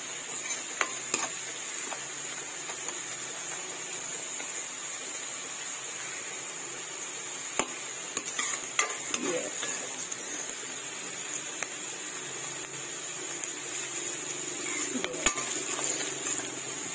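Chopped green beans and onion sizzling in oil in a metal kadhai while a metal spoon stirs and scrapes them, with a steady frying hiss and occasional sharp clinks of the spoon against the pan.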